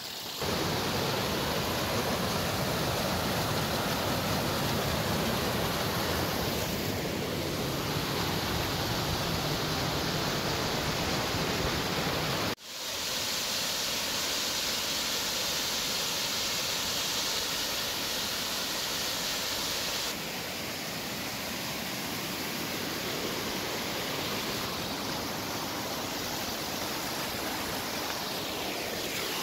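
Rushing water from a small waterfall and creek cascading down a mossy slope, a steady rushing noise. It cuts out for an instant about twelve seconds in and comes back slightly softer later on.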